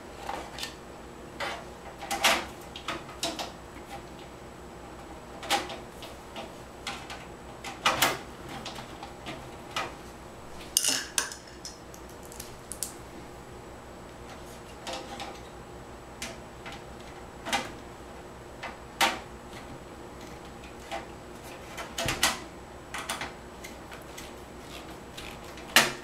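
Irregular metallic clicks and clinks as a 120 mm case fan is set into a steel PC case and its mounting screws are started with a screwdriver. The sharpest click comes near the end.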